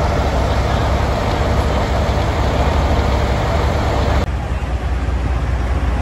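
Big-rig diesel engines running, a steady low rumble under a dense haze of noise. A sudden cut a little over four seconds in switches to a similar, duller rumble.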